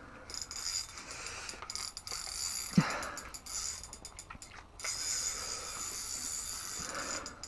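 Fishing reel clicking and whirring as line is cranked in against a large, hard-pulling fish, with one brief low thud about three seconds in.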